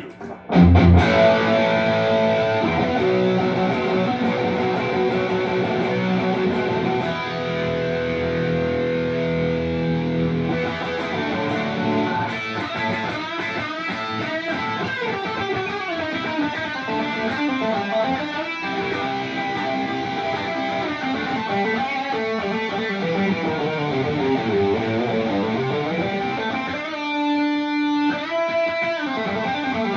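Electric guitar with P90 pickups played through a ToneKing Royalist preamp into powered PA speakers, overdriven by a Chase Bliss Brothers AM pedal with both of its sides on. Sustained overdriven chords ring out after a brief break, then lead lines with bent notes, and a short fast repeated figure near the end.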